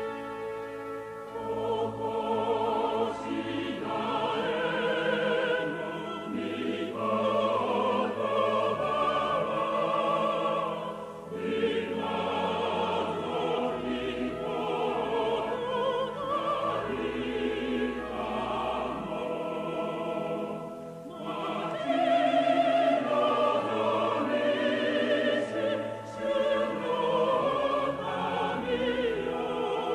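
A choir with orchestra singing a Christmas hymn in sustained phrases with vibrato, pausing briefly between phrases about eleven and twenty-one seconds in.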